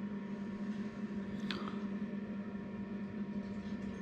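Steady low hum, as from a fan or other small appliance running in the room. About a second and a half in comes one brief, falling chirp.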